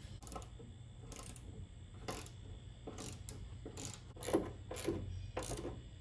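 Ratchet turning a Torx bit to loosen a rear seat-mounting bolt, clicking in short bursts about once a second, the loudest a little after four seconds in.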